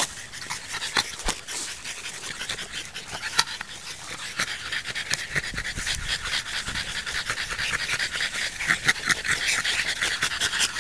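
French bulldog puppy panting in quick, short breaths, growing heavier in the second half.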